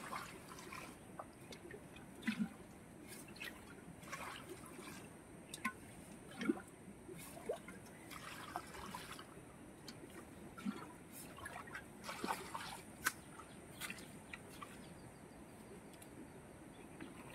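Faint trickling and dripping of muddy water, with scattered small wet clicks, as an aluminium pot is worked over a water-filled hole in the mud.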